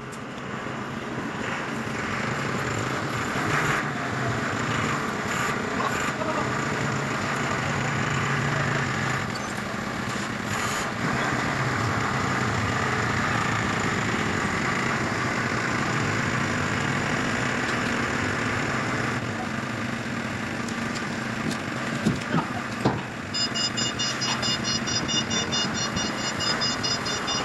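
Forklift engine running steadily while carrying a heavy load, with a few metal clanks a little over twenty seconds in, then a fast, evenly repeated electronic beeping near the end.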